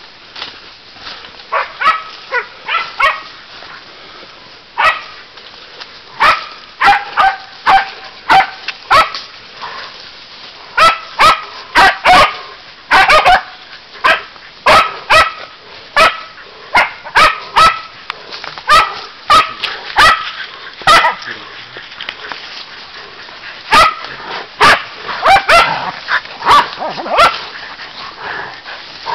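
Pig-hunting dogs barking: dozens of short, sharp barks in irregular runs, with a few brief pauses.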